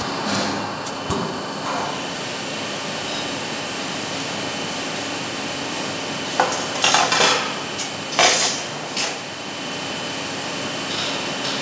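Metal clanking and rattling as gloved hands work a small metal device on a workbench, a cluster of sharp knocks between about six and nine seconds in. A steady hum of workshop machinery runs underneath.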